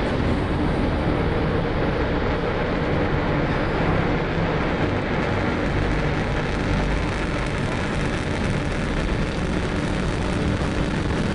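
Long March 2C rocket's four-engine first stage firing at liftoff: a loud, steady, dense rushing roar with a deep rumble underneath that holds without a break.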